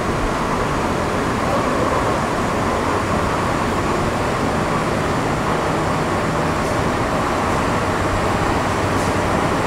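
MTR Metro Cammell M-Train electric multiple unit with GEC GTO chopper traction, heard from inside the car while running between stations: a steady, loud rumble of wheels and running gear with a faint hum underneath.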